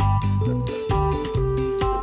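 Background music: plucked guitar notes over a steady drum beat.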